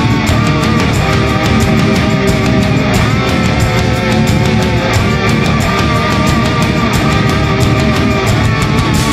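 Loud hard rock music with distorted electric guitar and a steady, driving drum beat.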